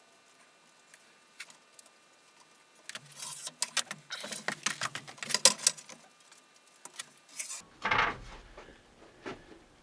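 Pencil scratching along a straight edge on a wooden board for about four seconds, then a louder knock near the end as a tool is handled.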